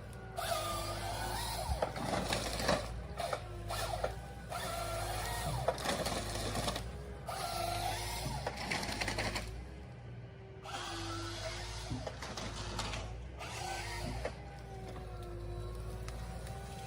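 Forestry harvester at work: the engine runs steadily with a hydraulic whine rising and falling, broken by repeated loud rattling, grinding stretches of a few seconds each as the harvester head feeds and processes wood.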